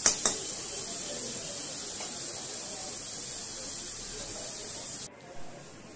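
Sliced carrots, onions and capsicum sizzling in hot oil in a kadai: a steady high hiss, with two quick knocks at the start. The sizzle cuts off abruptly about five seconds in.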